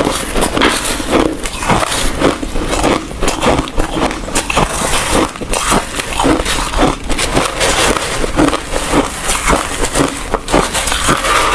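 Close-miked crunching of ice being bitten and chewed, a rapid, uneven run of sharp crunches several times a second.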